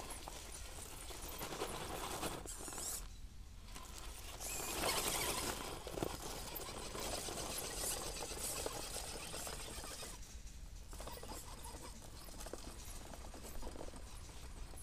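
1:10 electric RC rock crawler climbing a rubberized slope: electric motor and drivetrain whirring with the tyres scrabbling for grip, stopping briefly twice, about three seconds in and again about ten seconds in.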